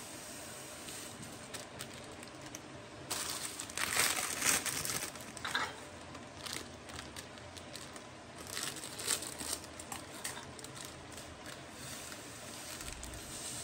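Thin plastic spice bags crinkling as whole spice seeds are poured from them into glass jars. The crinkling comes in bursts and is loudest about three to six seconds in, with another burst around nine seconds.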